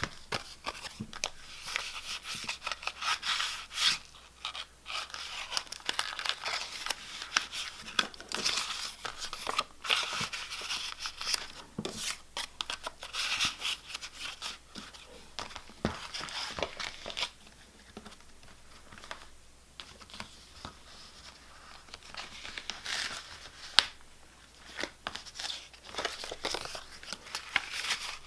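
Paper stationery being handled and slid into a notebook's pockets: irregular rustling and crinkling with small taps, quieter for a few seconds around the middle.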